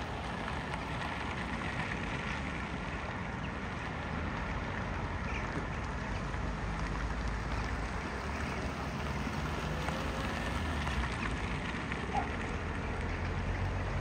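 Steady outdoor background rumble and hiss, with a few faint, brief bird calls now and then.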